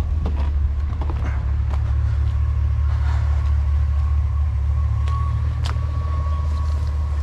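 Steady low drone of a vehicle's engine running, with a few light clicks and knocks and a thin steady whine over the second half.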